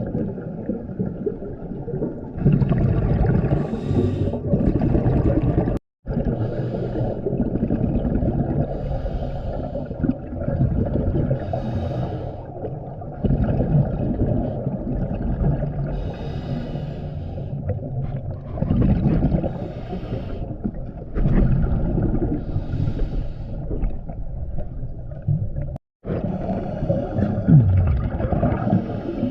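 Scuba diver breathing underwater through a regulator, heard through an underwater camera housing: a low, muffled rumble with a gush of exhaled bubbles every few seconds.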